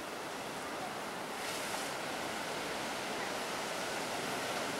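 Ocean surf breaking and washing over a rocky shore, a steady rush with a brief louder hiss of spray about one and a half seconds in.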